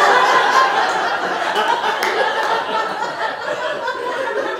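Audience laughing loudly in response to a punchline. The laughter is strongest near the start and eases off a little.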